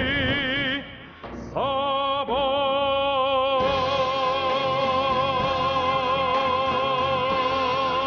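Closing bars of a Russian pop ballad: a male singer holds long notes with a wide vibrato over the backing music. There is a brief drop in loudness a little over a second in, then a note slides up and a final note is held.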